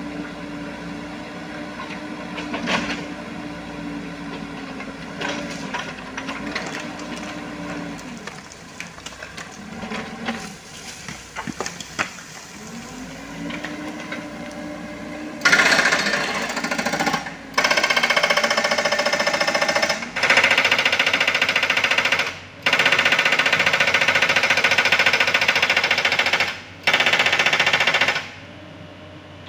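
Komatsu PC78US mini excavator running, its steady machine note dipping and rising. About halfway through, its hydraulic breaker starts hammering on rock in five long bursts of rapid blows, each separated by a brief pause.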